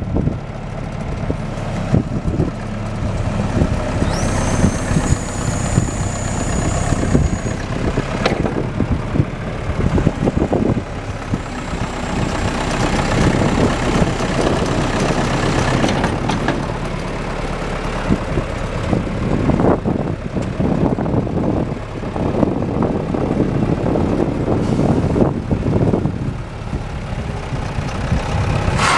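John Deere 510C loader backhoe's diesel engine running, its level rising and falling, with a few knocks and a thin high whine for a few seconds near the start.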